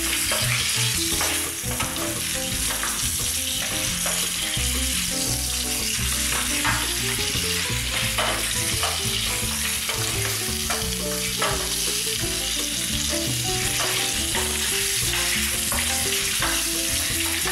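Ribs sizzling as they sear in hot oil in a stainless steel roasting tin, with repeated scrapes and knocks as a wooden spatula stirs and turns them against the tin.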